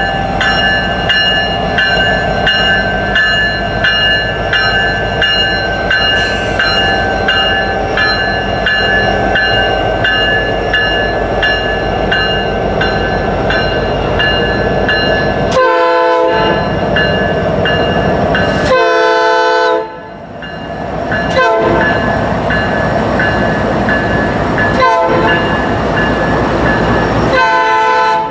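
A freight train's diesel locomotives pass close by, running loudly with a steady whine over their engines and the wheels on the rails. From about halfway, a locomotive horn sounds several times in short and longer blasts.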